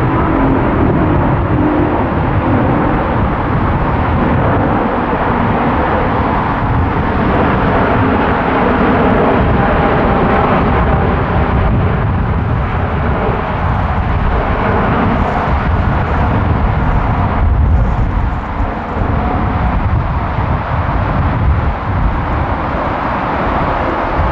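Airbus A350-900's two Rolls-Royce Trent XWB turbofans running at takeoff thrust, a loud, steady jet noise without a break.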